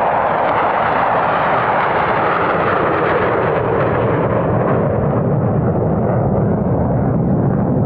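F-16 Fighting Falcon's jet engine, loud and steady as the fighter flies past, its noise turning deeper and duller in the second half as it moves away.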